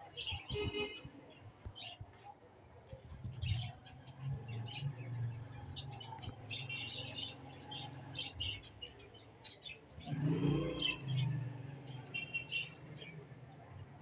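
Budgerigars chirping and chattering in many short bursts, with a low rumble swelling briefly about ten seconds in.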